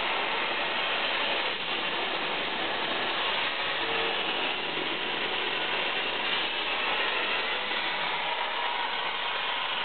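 Plasma arc of a Torchmate CNC plasma cutter cutting through 14-gauge steel: a steady, crackling hiss.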